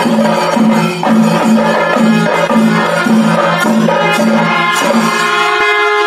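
Outro music with a steady beat of about two pulses a second over sustained tones. Near the end the beat stops and a held chord rings on.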